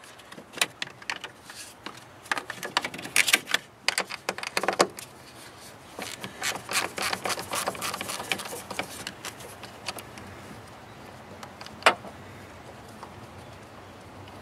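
Clicks and scrapes of a car battery's positive terminal clamp and its plastic cover being worked by hand to disconnect it. They come in uneven runs, with one sharp click about twelve seconds in, then it goes quieter.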